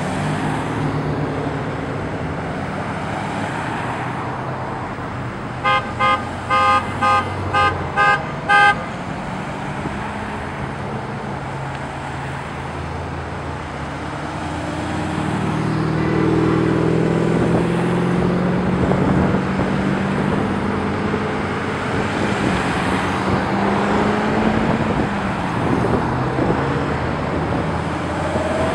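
Line of V8 Corvettes driving slowly past, engines running, with a car horn honking seven quick times, about two a second, some six seconds in. The engine sound grows louder in the second half as more cars pass close by.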